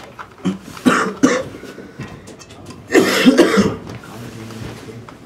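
A person coughing close to the microphone: a couple of short coughs about a second in, then a louder, longer bout of coughing around three seconds in.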